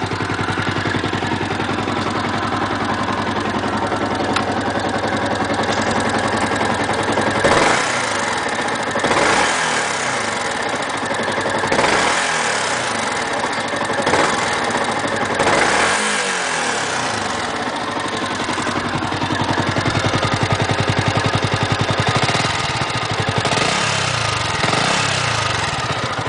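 Yamaha YZF-R125's single-cylinder four-stroke engine through its stock exhaust, idling steadily, then blipped several times in short revs up to about 7000 rpm, dropping back to idle after each. The engine is still fairly cold.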